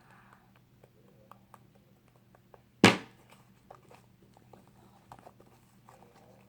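Homemade fluffy slime being squished and stretched by hand, giving small sticky clicks and pops, with one loud thump about three seconds in.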